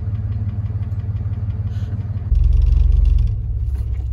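Pickup truck engine running, heard from inside the cab as a steady low rumble that swells louder and deeper for about a second midway.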